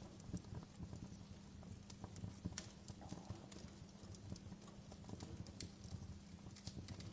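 Wood fire burning in a fireplace, crackling with irregular sharp pops and snaps over a low, steady rumble of the flames.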